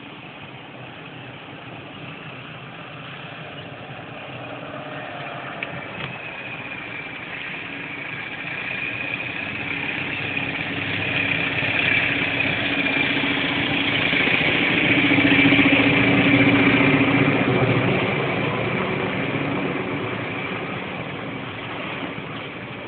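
A steady droning, engine-like hum with a low note and a higher whine above it. It slowly grows louder to a peak about two-thirds of the way through, then fades again.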